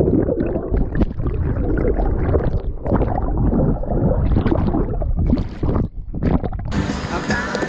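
Muffled underwater rushing and gurgling of river water picked up by an action camera held under the surface, with splashes and knocks from hands on the housing. About seven seconds in, it cuts to background music.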